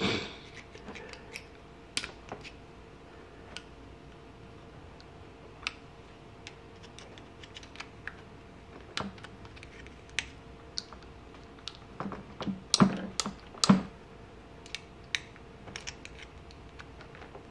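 Small metallic clicks and scrapes as a screwdriver tip pushes a circlip down into its groove in the bore of a 2014 Suzuki GSX-R750 rear brake master cylinder. The clicks are irregular and scattered, with a denser, louder group about two-thirds of the way through.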